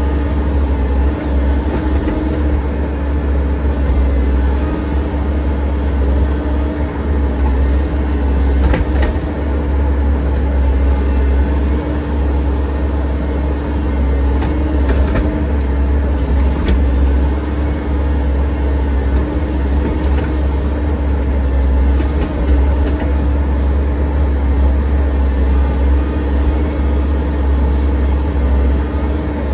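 Excavator's diesel engine running steadily, a deep rumble with a constant hum over it.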